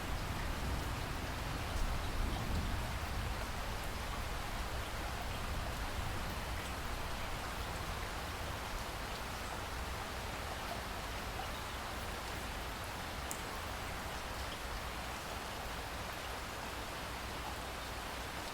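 Steady heavy rain falling on a lake. A low thunder rumble dies away over the first few seconds.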